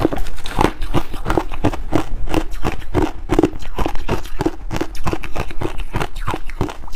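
Close-miked crunching of frosty crushed ice: chewing and a metal spoon scooping through the ice in a steel pot, a dense run of crisp crackles several times a second.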